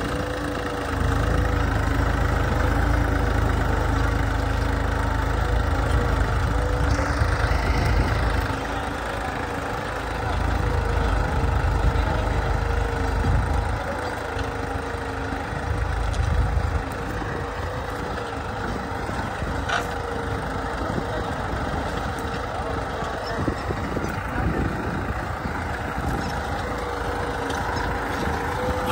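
New Holland 3600-2 tractor's three-cylinder diesel engine running steadily under load as it pulls a two-bottom mouldboard plough through dry soil. A deep rumble swells and eases several times, and there is a single sharp click about twenty seconds in.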